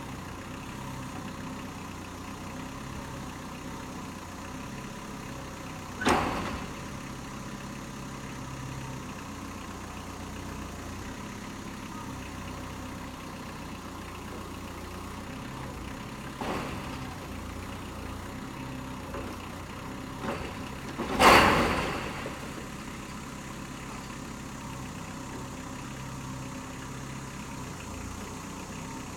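Kubota M59 tractor-loader-backhoe's diesel engine running steadily, with sudden sharp bangs about six seconds in and around sixteen seconds, and a louder, longer bang a little past twenty seconds.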